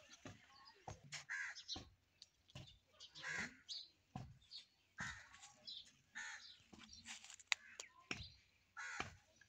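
Short, harsh animal calls repeating every half second to a second, with bits of voices among them.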